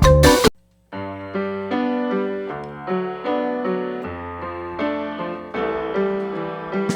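Background music: a track with a steady beat stops about half a second in. After a brief silence comes a soft, slow passage of keyboard chords and single notes with no drums, and the beat comes back at the very end.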